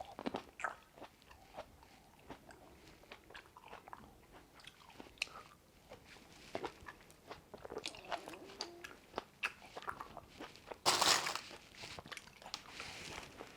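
Close-up chewing and biting of Shine Muscat grapes: many small crisp, wet crunches and clicks, with one louder rush of noise about eleven seconds in.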